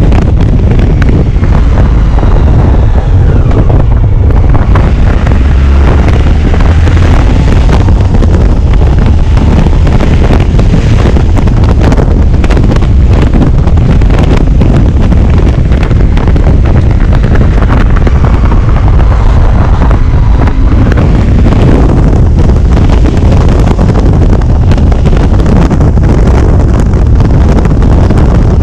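Heavy wind buffeting on the microphone over a Honda ST1100 Pan European's V4 engine running at road speed, its pitch rising and falling a few times with the throttle.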